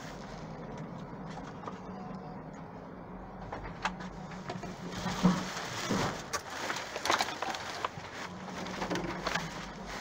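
Rummaging through trash inside a dumpster: plastic bags and packaging rustling, with scattered knocks and clicks as items are moved, mostly in the second half, over a steady low hum.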